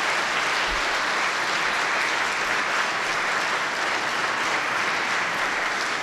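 Audience applauding, a steady dense clapping that cuts off abruptly at the end.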